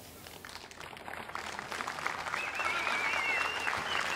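Audience applause starting up and growing louder, with a high wavering tone rising above it for about a second and a half near the middle.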